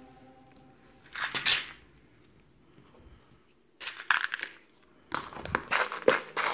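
Crunching, crackling handling noise in three short bursts, as something is squeezed or pressed by hand.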